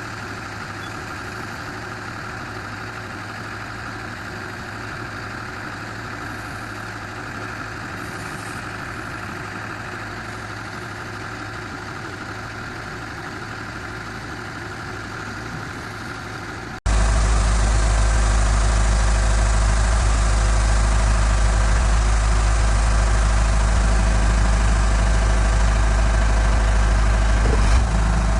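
Engine of a hydraulic water well drilling rig running steadily. About 17 s in the sound jumps abruptly to a much louder running with a strong deep hum.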